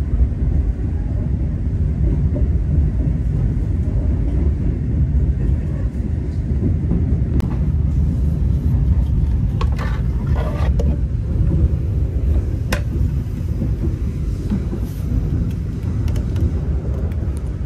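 Steady low rumble of a passenger train running, heard from inside the carriage. A few sharp clicks and knocks about halfway through come from the seat's armrest and fold-out tray table being handled.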